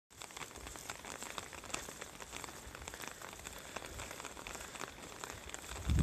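Steady rain falling, with many scattered drop ticks. Just before the end a gust of wind hits the microphone as a low rumble.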